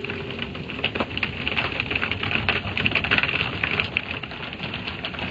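Automatic car wash brushes slapping and scrubbing against the car while water spray patters on the glass, heard from inside the cabin. It is a fast, irregular patter of many hits, loudest about three seconds in.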